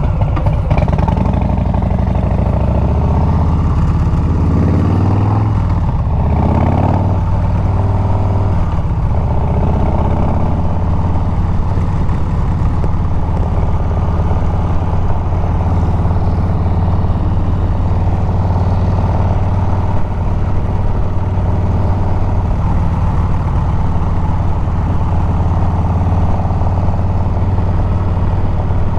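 Harley-Davidson Milwaukee-Eight 114 V-twin running through a Bassani exhaust under way: the engine note climbs as the bike accelerates over the first several seconds, then settles into a steady cruise.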